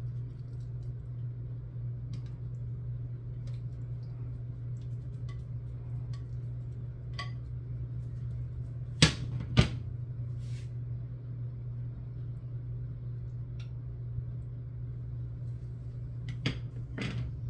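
A metal fork clinking and scraping against a plate while tofu cubes are pushed off it into a skillet, with two sharp knocks about nine seconds in and two more near the end, over a steady low hum.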